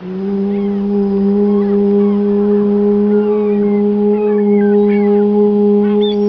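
A woman's voice chanting one long, steady 'oo' vowel (the 'U' sound of a meditation breathing exercise), held on a single pitch.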